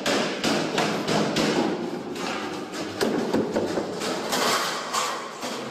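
A rapid, irregular run of thumps and knocks over a rustling noise.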